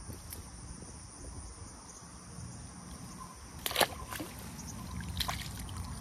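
A snakehead slipping back into shallow water among bankside grass: water trickling and sloshing, with a sharper splash about two-thirds of the way in and a few smaller ones after.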